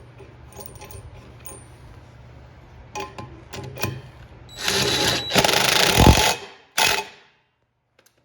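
Handling noise from work on a washing machine: a low hum with light clicks and a few sharp knocks, then two loud bursts of rushing noise, the first about one and a half seconds long, both cutting off abruptly.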